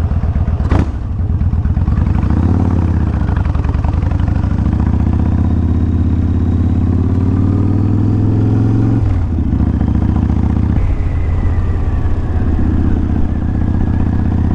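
Kawasaki Vulcan 1500 V-twin motorcycle engine pulling away from a stop and accelerating. Its note rises, then drops twice, at about nine and eleven seconds in, as it shifts up through the gears.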